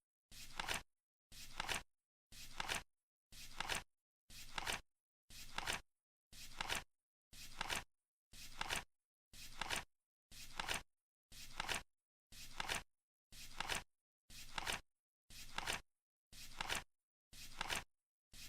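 Flip clock ticking off the seconds, one flap turning over every second: each flip is a short rustling flutter that ends in a sharp clack.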